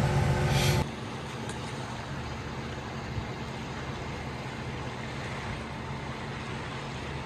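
Sailboat motoring in calm water: for about the first second a steady motor hum with several held tones, then after a sudden drop a steady, even rush of wind and water noise passing the boat.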